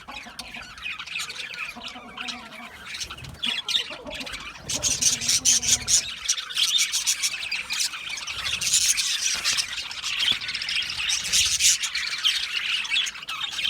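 A flock of budgerigars chattering, chirping and squawking continuously, busier and louder from about five seconds in.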